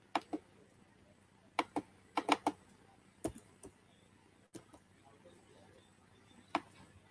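Computer mouse clicking and scrolling, about a dozen short, sharp clicks in irregular clusters, busiest around two seconds in, with a last single click near the end.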